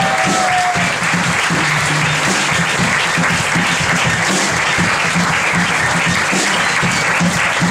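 Audience applauding at the end of a song. A held final note stops about a second in, and the band's music carries on under the clapping.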